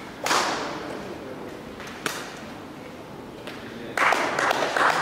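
Badminton racket strikes on a shuttlecock in a rally, two sharp hits about two seconds apart, echoing in a large hall. About four seconds in, a louder burst of noise takes over.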